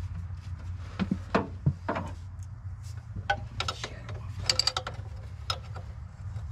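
Metal clicks and scrapes of a wrench loosening the injector hard-line nuts on a Ford 7.3 IDI diesel: scattered sharp ticks, with a quick run of clicks about four and a half seconds in.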